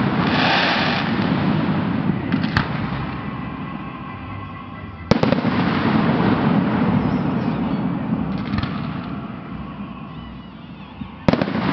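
Aerial fireworks shells bursting overhead: a lighter bang about two and a half seconds in, a big one about five seconds in and another near the end. Each is followed by a long rumble that slowly fades.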